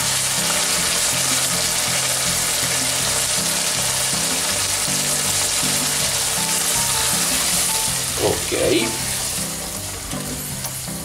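Fresh beans, cured ham and shallot frying in olive oil in a pot, a steady sizzle as tomato passata is poured in and stirred with a spoon; the sizzle eases slightly near the end. Soft background music runs underneath.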